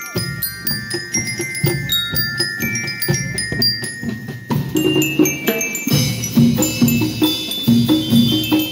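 School rhythm band playing: bell lyres ring out a melody over a steady drum beat.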